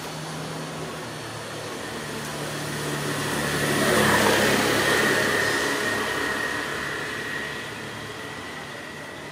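A vehicle passing by: a rushing engine and road noise that grows louder to a peak about four seconds in, then fades away.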